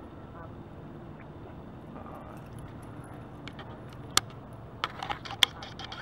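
A hard plastic fishing lure and its metal hooks and snap clinking as the lure is handled on the line. The clicks are sharp and scattered, and start about three and a half seconds in, the loudest two a second or so apart, over a steady low background noise.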